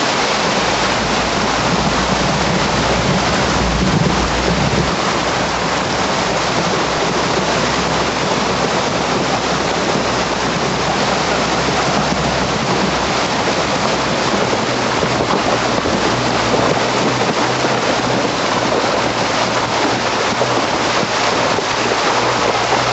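A Jeep driving through a shallow river: a steady wash of water splashing and churning around the wheels, with a low rumble swelling a few seconds in.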